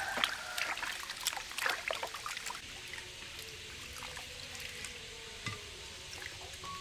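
Hands splashing and swishing vegetables in a metal basin of water for the first couple of seconds, then quieter pouring and dribbling as water runs off a lifted pineapple back into the basin.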